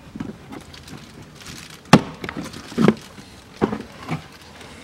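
Plastic retaining clips popping out as the Audi Q7's trim panel under the glovebox is pulled down by hand: several sharp plastic snaps and knocks, the loudest about two seconds in.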